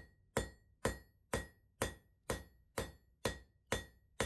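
Blacksmith's hammer striking a metal bar on an anvil in a steady rhythm, about two blows a second, each with a short ring. The smith is drawing out the bar with the round side of the hammer.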